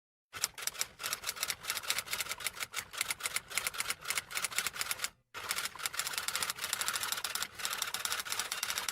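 Rapid, continuous typing clicks, many per second, breaking off briefly about five seconds in and then resuming.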